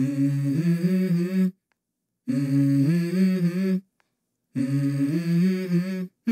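Wordless vocal music of held, hummed chords that step from note to note. It comes in three phrases of about a second and a half each, with dead silence cutting in between them.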